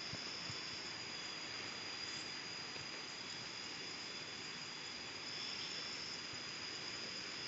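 Insects chirring in a steady, continuous high-pitched drone over a soft background hiss.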